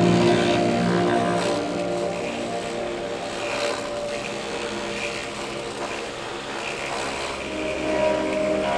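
Multi-spindle clog-hollowing machine running, its rotating bits boring out the insides of wooden clogs: a steady mechanical hum made of several even tones, with short bursts of cutting noise as the bits bite into the wood.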